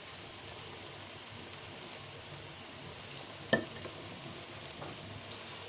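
Steady sizzling of food frying in oil in a cooking pot, with one sharp clink of a metal utensil against the pot about three and a half seconds in.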